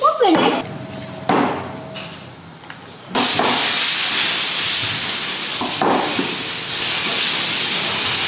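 A few light knocks and clicks of small metal parts being handled, then about three seconds in a loud, steady hiss starts suddenly and holds.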